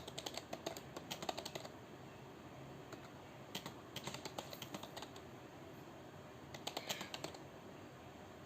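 Typing on a computer keyboard: bursts of quick keystrokes separated by short pauses, stopping about seven seconds in.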